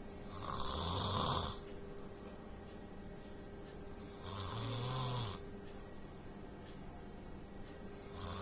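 A sleeping person snoring: two long snores about four seconds apart, each about a second, with a low rattling tone and a breathy hiss, and a third starting right at the end.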